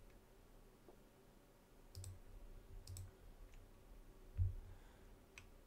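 A few faint computer mouse clicks, about two and three seconds in and again near the end, with a single low thump between them that is louder than the clicks.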